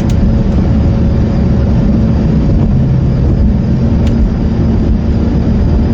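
Steady engine and road rumble heard inside a moving car's cabin, with a single short tick about four seconds in.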